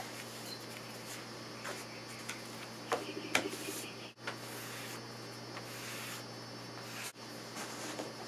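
Heavy canvas cloth rustling and rubbing as it is peeled back off a rolled-out stoneware clay slab, with a few sharp clicks about three seconds in, over a steady low hum.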